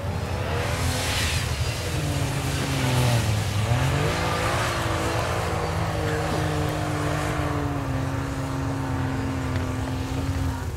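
Jeep Cherokee engine revving hard as it climbs a steep sand hill. The revs sag and pick up again about three and a half seconds in, then hold high and steady.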